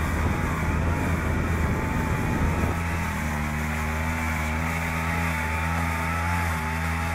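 Agria 4000 walk-behind tractor's engine running steadily while driving its front rotary sweeper brush. A rough sweeping noise on top of the engine drops away about three seconds in, leaving the engine's even running.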